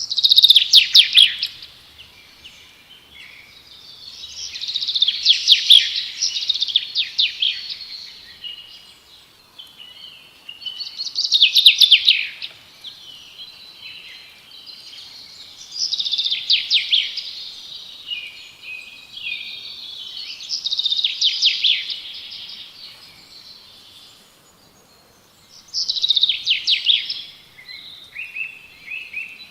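Birdsong: a bird sings a fast phrase of rapid, repeated notes about every five seconds, with softer chirps between the phrases.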